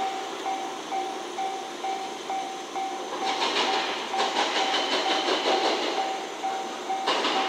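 A two-car 105 series electric train's wheels clattering over rail joints and points, loudest from about three to six seconds in and again briefly near the end. A steady electronic beep repeats about twice a second throughout.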